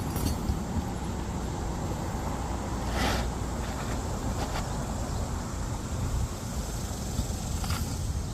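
Steady low outdoor rumble, with a brief rustle about three seconds in.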